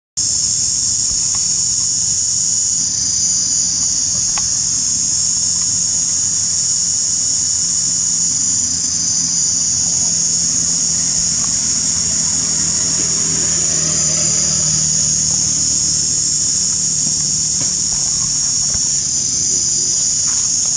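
Steady, loud chorus of insects: a continuous high shrill drone that shifts slightly in pitch a few times.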